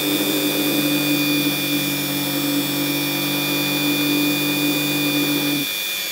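Ryobi EHT150V rotary tool running at a steady speed with a high motor whine, resting on its hard plastic carrying case, which picks up the tool's vibration as a low steady hum. About five and a half seconds in the low hum stops as the tool is lifted off the case, while the whine goes on.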